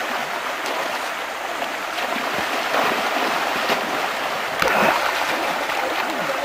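Rushing water of a shallow river rapid, a steady hiss, with splashing from people wading and swimming through the current and a slightly louder splash a little before five seconds in.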